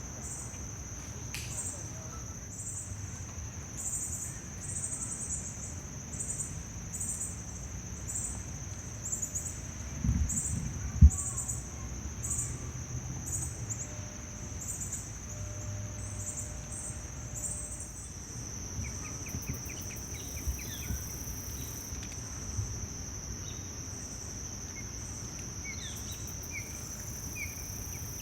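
Insects droning at a steady high pitch with an evenly repeating chirp, in a rhythmic chorus; small birds chirp briefly and sporadically from about two-thirds of the way in. A single sharp thump about halfway through is the loudest event.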